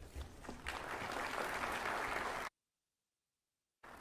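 Audience applauding, swelling about a second in, then cut off abruptly as the sound drops out completely for about a second.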